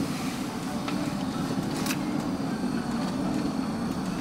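Steady engine and tyre noise heard inside the cabin of a moving car, with a faint click about two seconds in.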